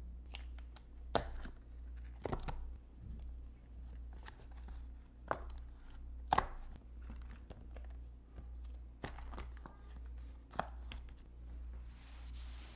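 Bars of homemade coconut oil soap being pushed out of a silicone mould and set down on a wooden cutting board: a series of sharp knocks a second or more apart. Near the end, a cloth wipes across the board with a short swish.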